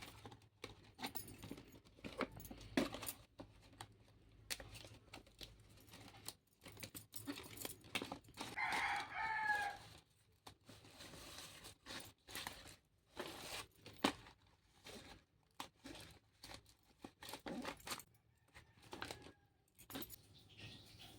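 Fresh sal leaves being handled and pinned together into a leaf cup: scattered soft rustles, crackles and small clicks. About nine seconds in, a chicken calls once, briefly, in the background.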